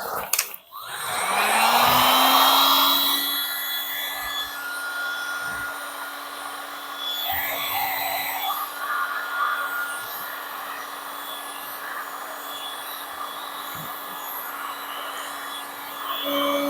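Heat gun switched on about a second in, its fan motor spinning up with a rising whine and then running steadily with a rush of air, blowing over freshly poured epoxy resin. Its tone changes near the end.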